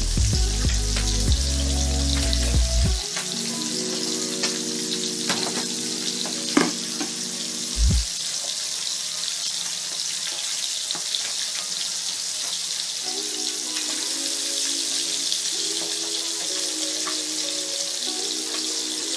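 Whole bilong-bilong (moonfish) frying in hot oil in a pan: a steady hissing sizzle with scattered pops, under background music.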